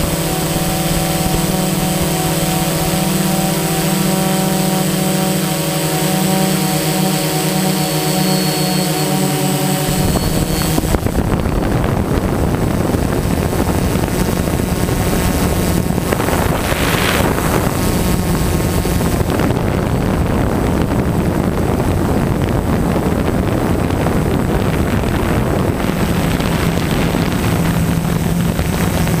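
DJI Phantom 1.1.1 quadcopter's electric motors and propellers humming in flight, heard up close from the camera mounted on it. A steady hum of several tones for about ten seconds turns into a rougher rushing noise with a brief hiss in the middle, and the hum comes back near the end.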